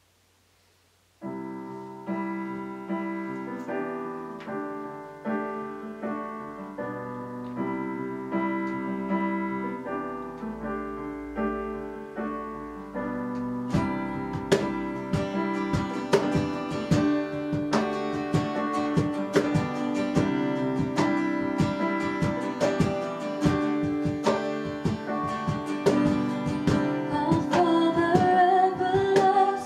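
Worship music: sustained keyboard chords begin after about a second of silence, turn busier with sharp rhythmic attacks about halfway through, and a singing voice comes in near the end.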